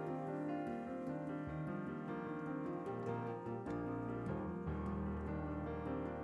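Background instrumental music led by piano.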